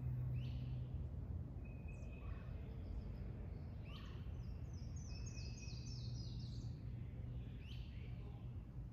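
Wild songbirds calling over a steady low outdoor hum: a short level whistle repeated every few seconds, sharp falling notes, and a quick run of high notes stepping down in pitch about five seconds in.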